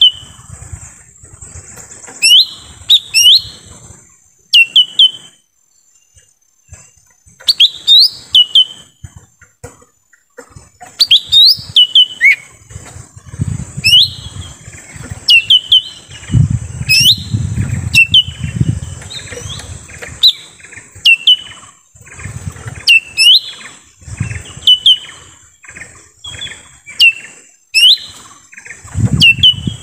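Lesser green leafbird (cucak ijo mini) calling: loud, sharp, down-slurred whistled notes, mostly in quick pairs and triplets, repeated every second or so. A steady high hiss runs underneath, with a low rumble around the middle.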